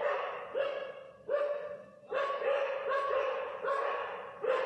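A dog barking over and over, two or three barks a second, with two short breaks in the first two seconds.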